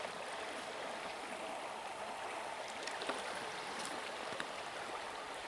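Stream water running steadily, an even rush, with a few faint ticks about three to four seconds in.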